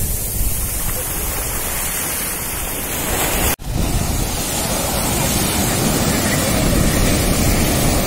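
Ocean surf washing in and breaking on a sandy beach, a steady rush of foaming water, with wind buffeting the microphone. The sound drops out for an instant about three and a half seconds in.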